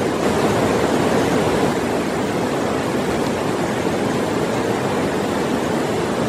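Shallow mountain river rushing steadily over stones.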